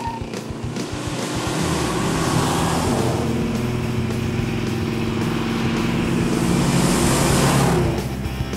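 1969 Dodge Coronet R/T's 440 Magnum big-block V8 running at a steady cruise as the car drives past. Engine and road noise build to a peak about seven seconds in, then fall away sharply.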